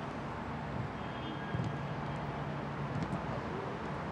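Steady low hum and hiss of open-air stadium ambience at a football training session, with a few faint knocks from footballs being kicked.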